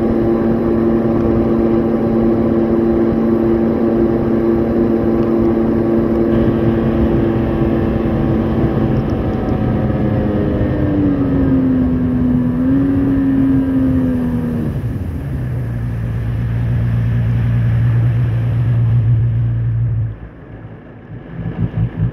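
Personal watercraft engine running steadily at cruising speed, then throttled back about halfway through, its pitch falling and wavering down to a low idle. It cuts out suddenly near the end.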